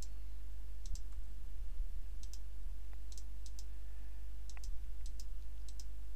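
Computer mouse button clicking at irregular intervals, about eight short clicks, many heard as a quick pair of ticks from press and release. A steady low hum runs underneath.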